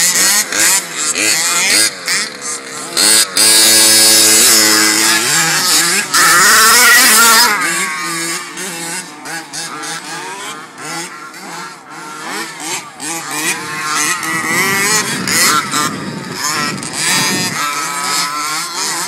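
Small racing engines revving up and down as off-road vehicles lap a dirt track. The engine sound is loud for the first several seconds, drops away as they pull off, and builds again near the end.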